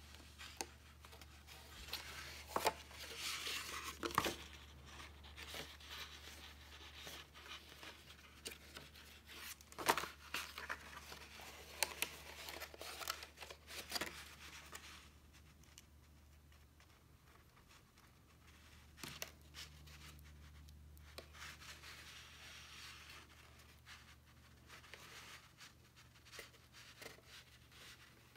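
Card stock paper rustling, creasing and tapping as a glued paper tray is turned and pressed in the hands, in stretches of crackle with quieter spells between, over a faint steady low hum.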